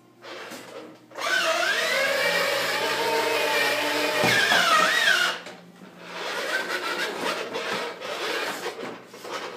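Electric motor of a battery-powered ride-on toy motorcycle whirring in two runs, a longer loud one and then, after a short pause, a weaker one.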